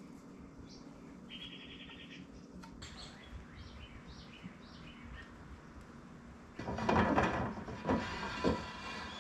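Faint birds chirping and trilling outdoors. About two-thirds of the way through, a louder scraping, rubbing noise begins with three stronger strokes as the glued mahogany door parts are pushed and slid together.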